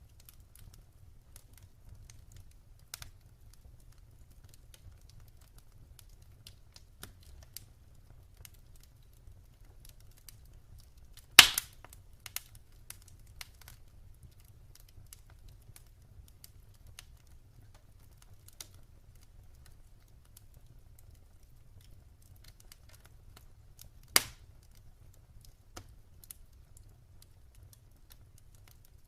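Wood fire crackling in a fireplace: scattered light ticks and snaps, with two loud, sharp pops about a third of the way in and again near the end.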